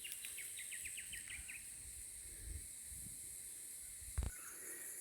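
Bush ambience: a steady high insect hiss, with a rapid run of about ten short high chirps in the first second and a half. A single soft thump comes about four seconds in.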